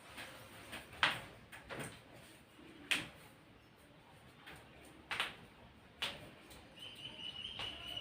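A few short knocks and thuds, spaced irregularly, then a steady high tone lasting about a second near the end.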